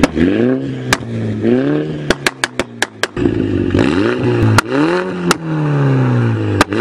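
MINI hatchback fitted with an Armytrix aftermarket exhaust, revving in repeated blips: the engine note climbs and falls back several times. Sharp exhaust pops and cracks break in throughout, with a quick string of them about two to three seconds in.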